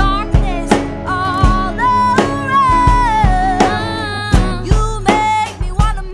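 Indie-folk song: a woman sings a melody over guitar and bass, with a steady drum beat hitting about every three-quarters of a second.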